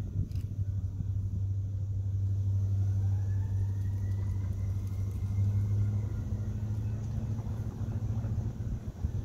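Low, steady rumble of a diesel locomotive's engine, with a faint whine that rises in pitch a few seconds in and then holds.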